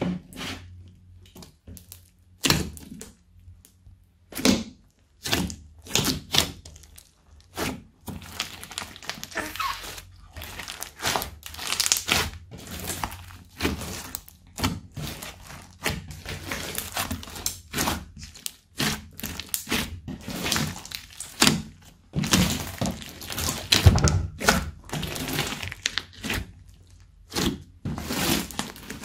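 Hands squeezing, folding and stretching a large mass of mixed slime with beads and crunchy bits in it: an irregular run of wet pops, clicks and crackles, thicker and louder in the middle and near the end.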